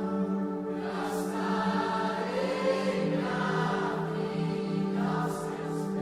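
Slow worship music: sustained chords with voices holding long wordless notes, the chord shifting about halfway through.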